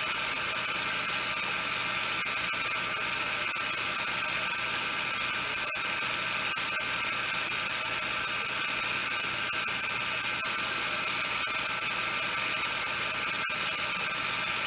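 Steady, unchanging whirring hiss that keeps the same level throughout.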